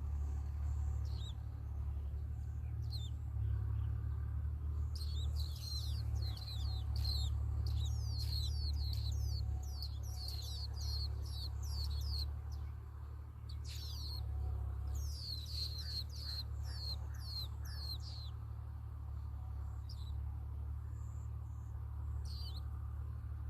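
Nestling birds begging for food: quick, high chirps that sweep downward, crowding together in two long runs of several seconds with single chirps between. A steady low hum runs underneath.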